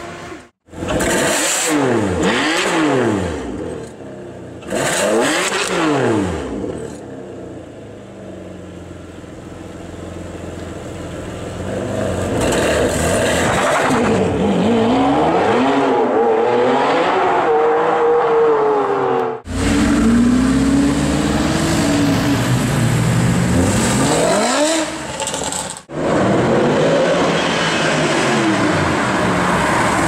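Several supercar engines revving hard and passing by, in short clips cut one after another. The engine pitch climbs and falls steeply again and again. The last clip is a Mercedes-Benz SLS AMG's V8.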